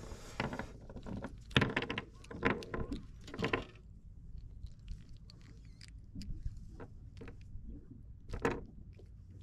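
Cloth towel rustling with a few sharp taps and knocks as a small fish is gripped in it and the sabiki hook is worked free, busiest in the first four seconds with one more knock near the end.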